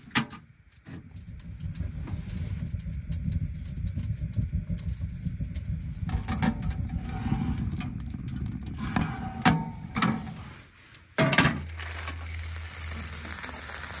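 Wood fire burning in a newly lit wood stove, a low rumble with crackles and a few sharp metal clanks. About eleven seconds in a clank is followed by a steady sizzle of chicken frying in a cast iron skillet.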